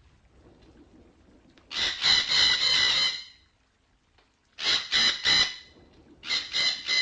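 Red-breasted parakeet calling: a rapid run of loud calls about two seconds in, three separate calls a little past the middle, then another quick series of calls near the end.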